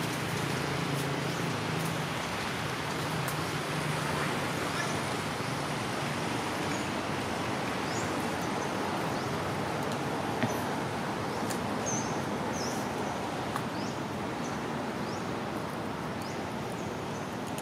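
Steady outdoor background noise like distant traffic, with a low engine hum in the first few seconds and short high chirps scattered through.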